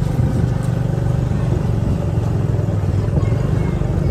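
Motorcycle engine running steadily under way, with a continuous low drone.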